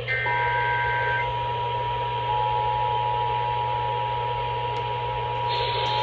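Emergency Alert System attention signal: a steady two-tone electronic tone from a radio receiver, starting about a quarter second in and holding steady, over radio hiss and hum.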